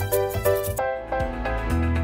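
Upbeat theme music for a TV cooking show. The quick repeated notes give way about a second in to longer held notes, and a low bass comes in near the end.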